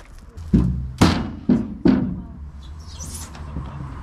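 Four heavy, hollow thumps on a metal playground slide, about half a second apart, each with a short deep ring, followed by a faint hiss about three seconds in.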